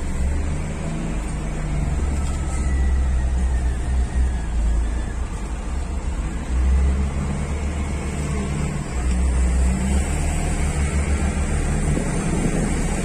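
Truck's diesel engine heard from inside the cab as the truck moves slowly, a low rumble that swells and eases several times.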